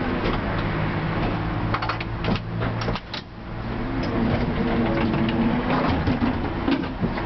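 Inside the cab of a TW6000 tram: a steady mechanical hum from the tram's equipment, with scattered clicks and knocks. The sound dips briefly about three seconds in.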